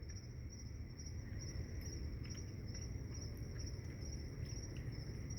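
Crickets chirping in a steady, rapid, high-pitched pulsing chorus over a low steady hum, with a few faint ticks.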